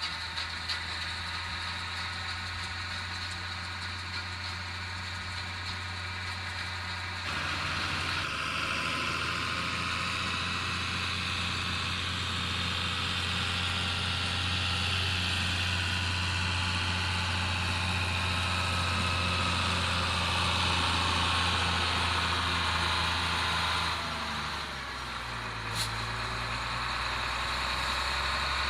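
IHC 1055 tractor's six-cylinder diesel engine running steadily while working a Mengele loader wagon. It gets louder about seven seconds in, eases off briefly near the end, then picks up again, with one sharp click in between.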